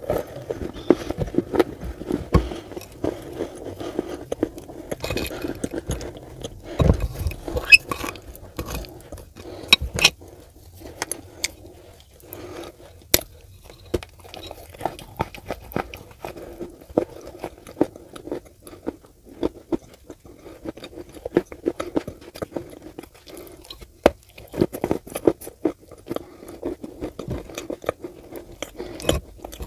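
Close-up eating of Turkestan clay with clay paste: irregular crisp cracks and crackles as pieces of the dry clay are bitten, mixed with steady chewing.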